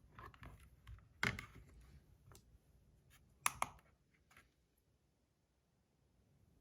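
A few light clicks and taps from handling a fidget spinner's small PEI plastic buttons and setting them down, the loudest pair about three and a half seconds in, then near silence.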